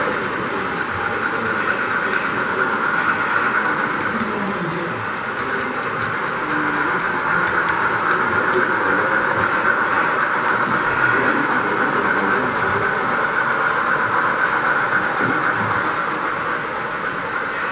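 O scale two-rail model train running past, its long string of cars rolling steadily on the track in an even, unbroken rumble.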